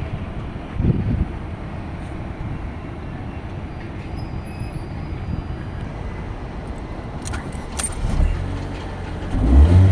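Steady low rumble with a few sharp clicks, then near the end a car engine starts and its pitch rises.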